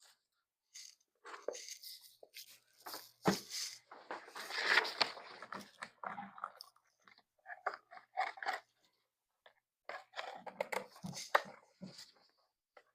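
Handling noise from assembling an animatronic bear prop: irregular rustling and crunching of fabric and plastic parts with scattered clicks, and a sharp knock about three seconds in.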